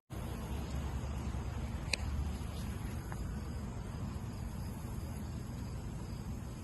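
Outdoor background of low wind rumble on the microphone and a faint steady high insect drone, with one sharp click about two seconds in and a fainter tick about a second later.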